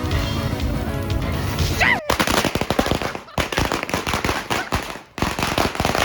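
Music for about two seconds, then it cuts to a string of firecrackers popping in rapid, irregular succession, with a couple of brief pauses.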